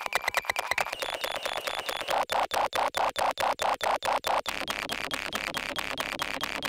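Circuit-bent Yamaha PSS-30 toy keyboards, rehoused together as one instrument, putting out harsh electronic noise and beeping tones chopped into a rapid, even stutter. The stutter and its tones change about halfway through.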